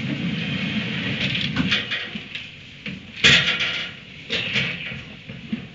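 Rustling and scraping in a barn stall, then one loud bang about three seconds in, with a few more knocks just after.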